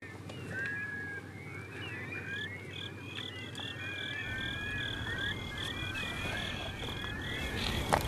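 Night chorus of many small animal calls: short overlapping chirps and whistles, with one steady pulsed call repeating about three times a second from about two seconds in, over a low rumble.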